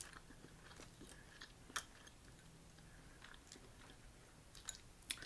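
Faint chewing, with scattered small clicks and cracks of boiled crawfish shell being peeled by hand.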